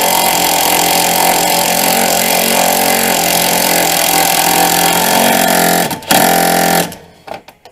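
Impact wrench hammering a bolt on the front engine mount down through a long socket extension. It runs in one long burst of about six seconds, stops briefly, then gives a short final burst as the bolt is snugged tight.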